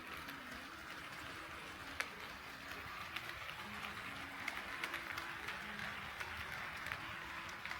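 HO scale model train running on KATO Unitrack sectional track: a steady rolling hiss with irregular clicks as the wheels pass over the rail joints, one sharper click about two seconds in.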